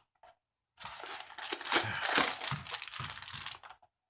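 Plastic toy packaging crinkling and crackling as it is handled and torn open, starting about a second in after a gap of dead silence and stopping shortly before the end.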